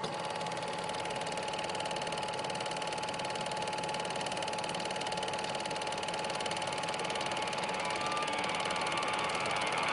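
Old cine film projector running: a steady, fast mechanical clatter over a constant hum, growing slightly louder toward the end.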